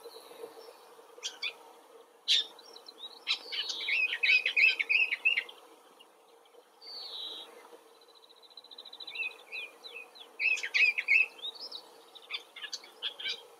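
Woodchat shrikes chattering in several bursts of quick, short notes. About seven seconds in there is a single short falling note followed by a fast run of faint ticks.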